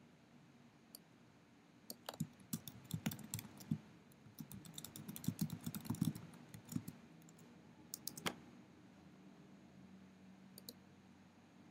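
Faint typing on a computer keyboard: an uneven run of key clicks, followed by a sharper click or two about eight seconds in.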